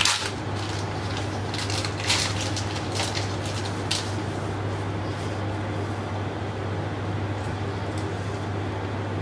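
Thick spiced masala simmering in a pan, a steady hiss with a few soft pops in the first four seconds, over a steady low hum.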